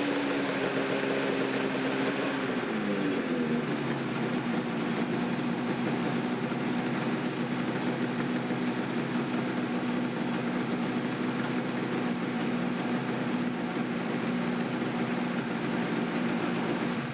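Yamaha RZ500's two-stroke V4 engine running steadily on its first start after a rebuild. Its pitch drops a little about three seconds in, then holds.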